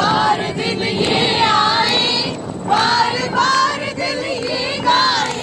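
A group of women and children singing a birthday song together and clapping along.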